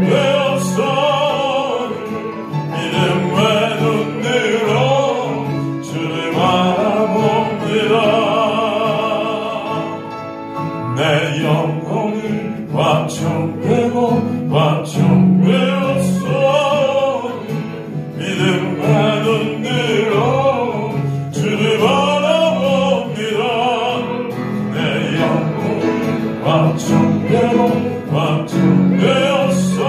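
A man singing a Korean worship song solo into a microphone over instrumental backing, in phrases with wavering held notes.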